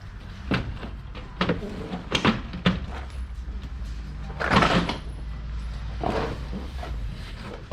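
Plastic clicks, knocks and scraping as a Dodge Ram 1500 headlamp assembly is worked loose and pulled out of the front end, with a longer scrape about four and a half seconds in as the loudest sound.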